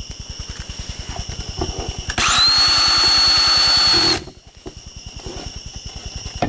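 Cordless drill/driver running for about two seconds, its whine rising quickly to speed and then holding steady, driving a screw that fastens a plastic pegboard tile to the wall.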